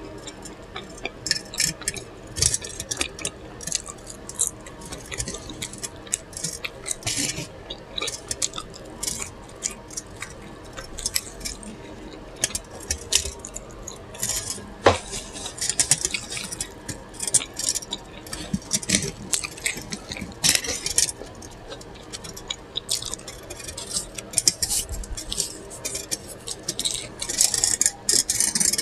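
Close-miked chewing and lip smacking while eating a burger: an irregular run of wet mouth clicks and crackles.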